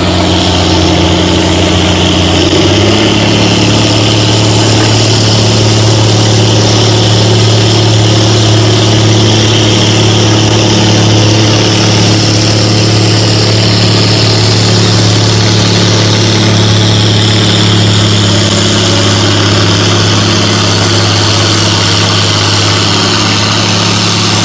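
John Deere farm tractor engine running hard under load as it pulls a weight-transfer sled. The engine note steps up about three seconds in, then holds steady and loud.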